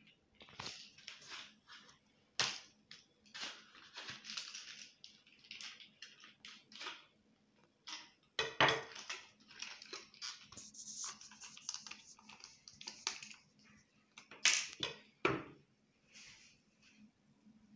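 Handling noise of a knife and its leather sheath: the leather rubbing and scraping as the blade is slid out and the knife turned over in the hands, with several sharp knocks.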